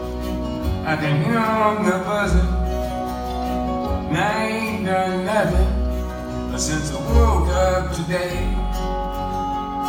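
Live acoustic country music during an instrumental break: strummed acoustic guitar and deep bass notes under a lead line that bends and glides through the melody.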